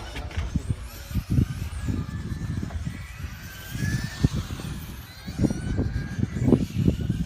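Radio-controlled touring car driving, its motor whine rising and falling in pitch as it speeds up and slows, over irregular low rumbling thumps.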